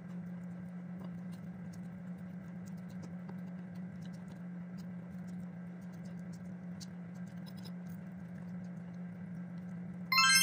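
Faint clicks and scrapes of a fork on a plate and the small mouth sounds of eating noodles, over a steady low hum. Just before the end a loud, bright chime rings out suddenly and then dies away.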